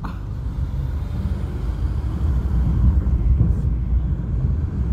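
Steady low rumble of a car in motion, heard from inside the cabin: engine and road noise.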